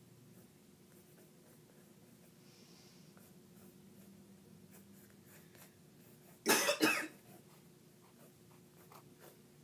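A person coughs, a quick double cough about two-thirds of the way through. Around it, faint scratching of pens on paper and a low room hum.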